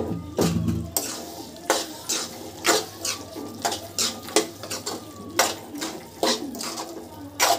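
Mashing the softened pav bhaji vegetables (potatoes, peas, carrots) in a metal kadhai with a metal utensil: repeated uneven knocks and scrapes of metal on the pan, about two a second, with the soft squelch of the mash.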